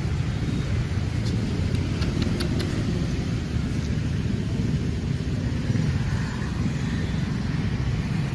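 Steady low outdoor rumble. A few faint clicks come about two seconds in.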